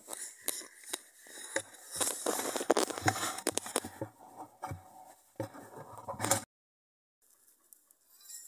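A pointed metal tool being driven and worked through the bottom of a plastic bucket to punch a hole: a string of sharp knocks and scraping crunches in the plastic. The sound cuts off abruptly about two thirds of the way through.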